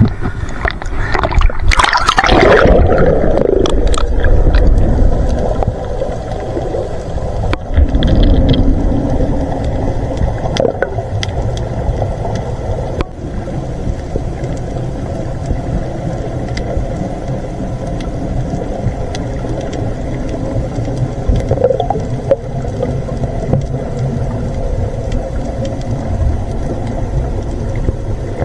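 Sea water splashing around a camera at the surface for the first few seconds, then the muffled, steady low rumble of being underwater with a faint continuous hum, and a brief splash about eight seconds in.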